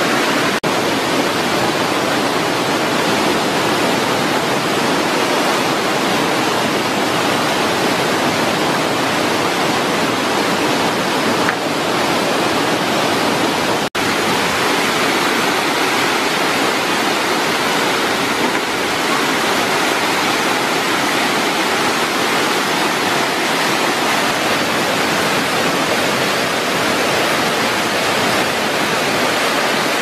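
Waterfall and rapids rushing, a loud, steady roar of white water that cuts out for an instant once near the middle.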